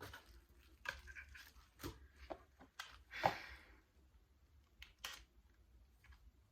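Handling sounds from an unboxed item and its packaging: about half a dozen light clicks and knocks scattered through, with a short rustle about three seconds in.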